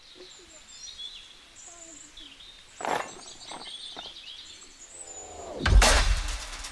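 Small birds chirping, with a sharp knock about three seconds in. Near the end comes a louder noise with a low rumble and a falling pitch.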